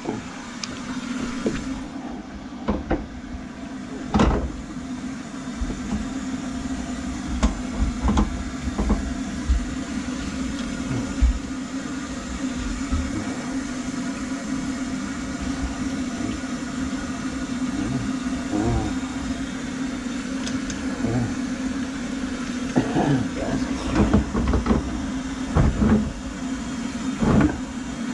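Handheld motorized drain-cleaning machine running with a steady hum, turning its cable through a kitchen sink drain line clogged with grease. Irregular knocks and clatters come through over the hum, most often near the end.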